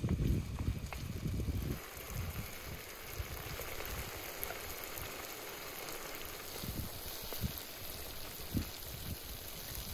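Tomato slices and raw eggs sizzling in a large black iron wok over a fire: a steady frying hiss. A low wind rumble on the microphone is heard for about the first two seconds.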